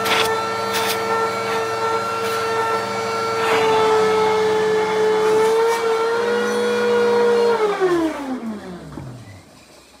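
Vacuum cleaner motor running with a steady whine while its hose nozzle is worked over a dusty round filter, knocking against it a few times in the first seconds. About three-quarters of the way through the vacuum is switched off and spins down, its pitch falling away until it stops.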